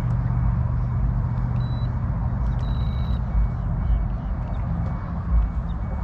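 Minn Kota electric trolling motor running steadily, a low hum with a rumbling undertone, as it drives the kayak under remote control. A short high beep sounds about two and a half seconds in.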